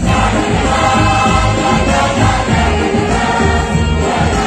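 A large choir singing an upbeat song in unison over amplified backing music with a steady bass beat.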